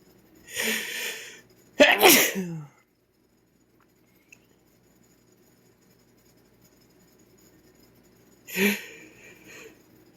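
A man sneezing forcefully: a noisy build-up, then a loud, sudden sneeze about two seconds in that ends in a voice falling in pitch. Near the end another noisy build-up starts toward the next sneeze.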